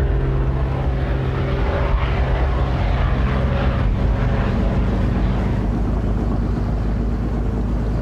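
Piston engines of a large four-engined propeller flying boat, a steady drone as it flies past low overhead.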